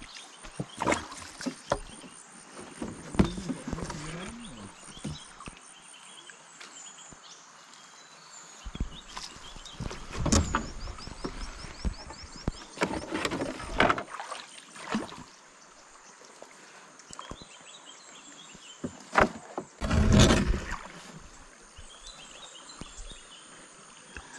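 Gill net being hauled by hand into a wooden canoe: irregular knocks and rustles of the wet mesh and sinkers against the boat, a few louder bunches of handling, with high chirping in the background.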